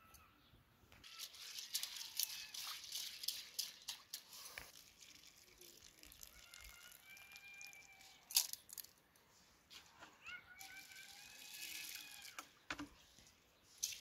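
Hands picking through barberries in a small metal bowl: irregular crinkly rustling and clicking, with a single sharp click a little past the middle and another spell of rustling near the end.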